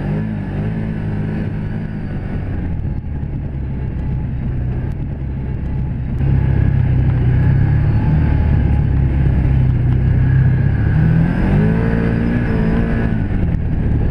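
Can-Am Commander 1000 side-by-side's V-twin engine running under way on a trail, getting louder about six seconds in as it speeds up. Near the end the revs climb and then drop back.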